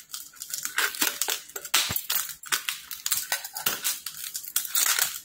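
A hand kneading and squeezing crumbly rice-flour dough in a steel plate: irregular crunchy squishes, several a second, with fingers rubbing against the steel.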